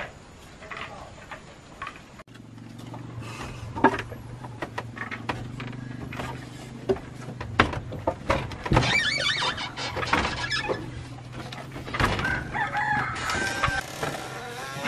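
Chickens clucking and a rooster crowing, amid scattered knocks and thumps and a low steady hum through much of the time.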